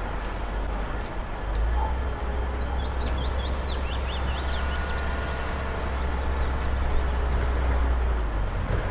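Low, steady engine rumble of heavy diesel machinery at the quarry siding. A small bird sings a quick run of high chirps about two to five seconds in.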